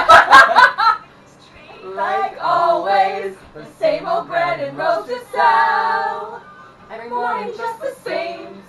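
A burst of laughter in the first second, then a small group of voices singing a slow tune together, with one long held note about halfway.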